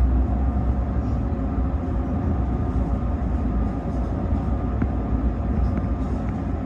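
Kintetsu Vista Car train running, heard inside the passenger cabin: a steady low rumble of the wheels on the rails with a faint steady hum over it. A few faint ticks come in the second half.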